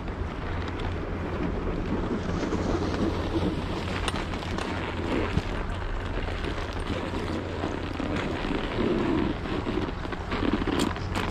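Wind rushing over the microphone, a steady noise with some thin clicks and scrapes on top.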